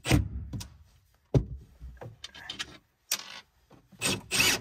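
Hand work with small parts and tools: two scraping strokes, a sharp knock about a second and a half in, light clicks, and a run of rhythmic scraping strokes near the end.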